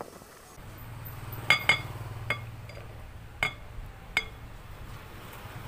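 Glass mixing bowl clinking as it is handled and tipped: about five sharp, ringing knocks of glass on glass, two close together near the start and the last about four seconds in.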